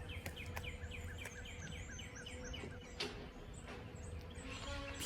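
A songbird singing a quick run of repeated short chirps, about three a second, which fades after about three seconds; a single sharp click comes about three seconds in.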